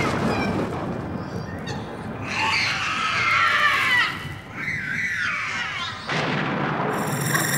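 High, wavering screams from a horror-film soundtrack, coming in waves. About six seconds in they give way to a steady low drone.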